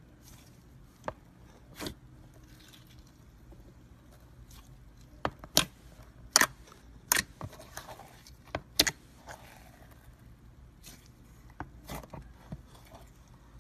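Clear green slime pressed and stretched by hand, giving off sharp, wet pops and clicks, scattered at first and then in a quick run around the middle.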